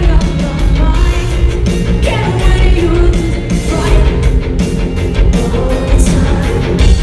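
Rock band playing live at full volume: a steady drum beat and guitars, with singing over the top.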